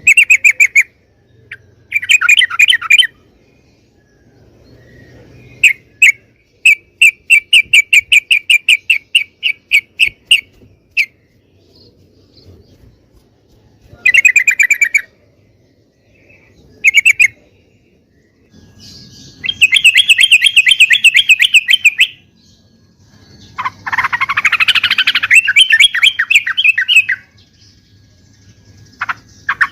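Yellow-vented bulbul (trucukan) singing in loud bursts of rapid, repeated chattering notes, separated by short pauses; one long run of evenly spaced notes comes near the first third, and a rising sweep into fast chatter comes late on.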